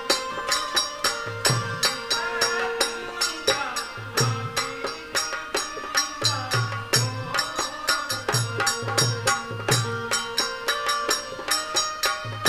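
Garba folk music for Navratri dancing: a fast, steady percussion beat with low drum hits under a held melody line.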